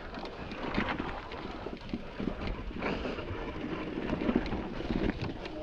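Wind buffeting the microphone, with scattered knocks and rattles of a mountain bike on rock.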